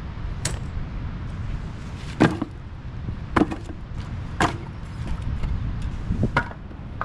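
Split firewood being set down in a pile: about five sharp wooden clunks spread across several seconds, the loudest a little over two seconds in. A steady low rumble runs underneath.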